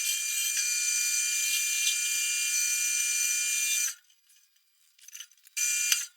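Woodturning on a lathe: steady high hiss of a tool cutting the spinning wood over a constant whine. It cuts off abruptly about four seconds in and returns briefly near the end.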